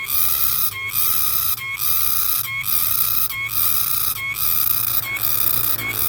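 Green cicada singing: a steady, high, hissing buzz broken about every second by a short gap with a brief whistle-like note, in an even rhythm.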